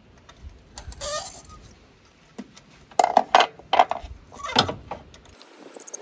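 A spark plug socket on a T-handle clinking and knocking against metal as it is worked down into the spark plug well of a Renault Twingo II engine. There are a few scattered clicks, then a quick cluster of sharp clinks about three seconds in.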